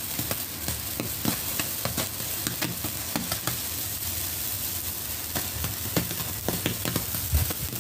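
Morning Glory sparklers burning: a steady fizzing hiss broken by many small crackling pops.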